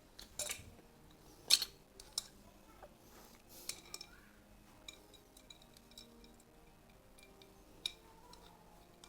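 Irregular metal clicks and clinks of a 19 mm wrench on the nut of a compressor-hose quick-coupler fitting as it is tightened, the sharpest about a second and a half in.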